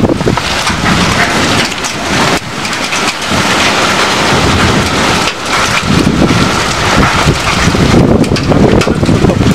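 Heavy rain and hail pelting down in a loud, continuous downpour, with many small sharp hits through it.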